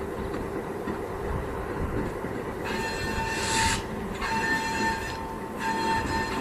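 Diesel cab locomotive rumbling slowly along the track while its air horn sounds three blasts. The first blast starts about three seconds in and is the longest; two shorter blasts follow close together.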